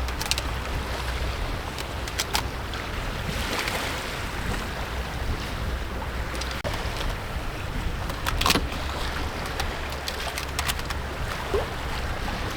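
Water rushing along a sailing yacht's hull while under sail, with wind on the microphone and a low steady rumble. A few sharp clicks or knocks cut through, the loudest about eight and a half seconds in.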